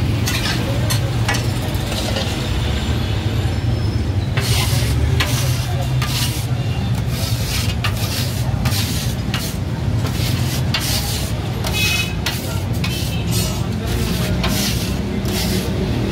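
Flat steel spatulas scraping and clacking on a hot flat iron griddle (tawa) as meat is worked in oil, the clatter of taka-tak cooking. The strokes come thick and fast from about four seconds in, some ringing slightly, over a sizzle and a steady low rumble.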